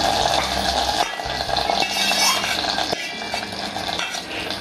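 A steel ladle scraping and clinking against a steel pan as ghee-fried cashews and raisins are tipped and scraped into a steel pot, in repeated short metal scrapes and clinks.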